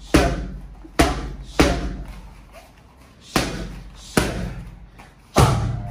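Gloved strikes smacking into Muay Thai focus mitts: six sharp hits in short combinations, unevenly spaced, each with a brief echo.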